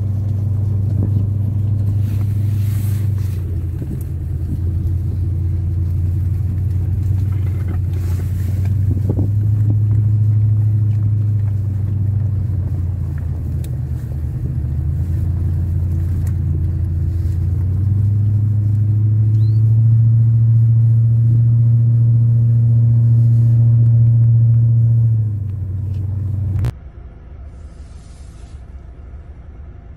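Off-road 4x4 vehicle's engine running under way with a steady low drone. It strains a little harder and rises slightly in pitch partway through. Near the end it cuts abruptly to a much quieter running drone.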